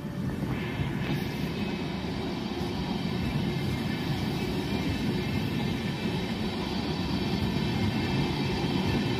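Coaches of a non-AC Sadharan Vande Bharat train running past close by at speed: a steady rumble of wheels on rails with faint high steady tones above it, growing slightly louder.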